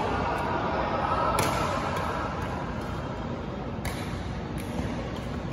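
Badminton rally: sharp racket strikes on the shuttlecock, two clearly heard about two and a half seconds apart, over a steady noise of the large hall.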